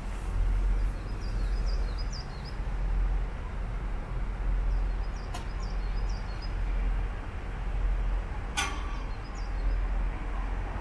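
Wind buffeting the microphone: a low rumble that swells and falls. Small birds chirp in three short bursts, and there is a sharp click about eight and a half seconds in.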